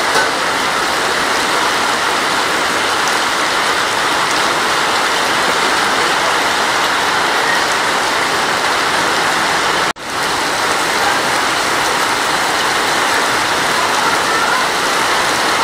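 Heavy rain pouring onto a paved street, a steady even hiss. The sound cuts out sharply for a moment about ten seconds in, then returns.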